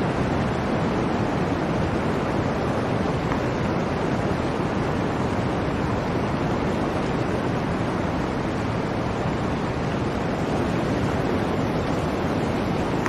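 Blizzard wind: a steady, dense rush of wind noise with no breaks or gusts standing out.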